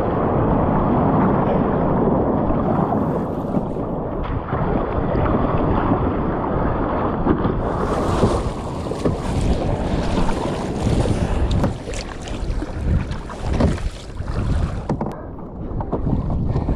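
Wind rumbling on the microphone over water rushing and splashing around a kayak being paddled through choppy sea, with a few sharper splashes in the second half.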